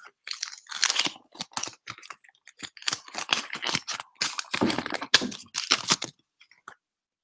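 Trading cards and their packet being handled close to the microphone: a run of quick clicks and rustles that stops about a second before the end.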